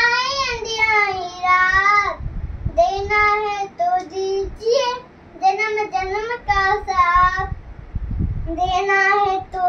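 A four-year-old boy singing a Hindi devotional bhajan with no instruments, in short sung phrases with brief breaks between them.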